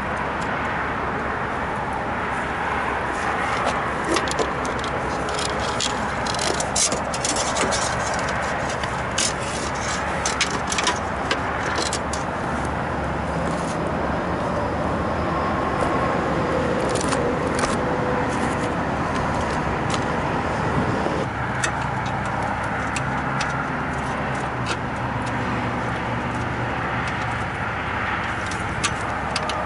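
Refrigeration condensing unit running steadily, the head pressure being held up by a condenser fan cycle control. Over it come scattered light clicks and scrapes of small parts and wiring being handled, thickest in the first half and again near the end.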